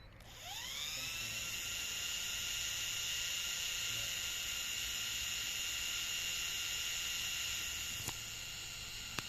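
Small GPS quadcopter drone's motors spinning up: a whine that rises in pitch about half a second in, then holds as a steady high-pitched propeller whine. Two sharp clicks near the end.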